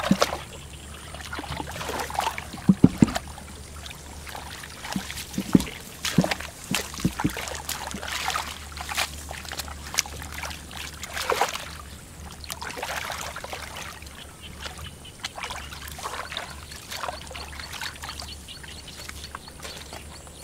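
Hands splashing and sloshing through shallow muddy water while feeling for fish, with irregular splashes and trickles of dripping water.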